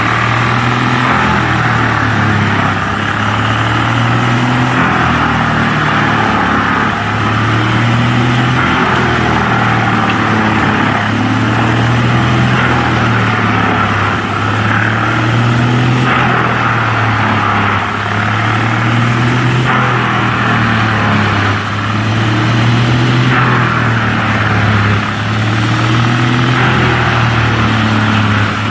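Large engine of the tree-removal machinery running steadily, its pitch wavering slightly up and down every second or two.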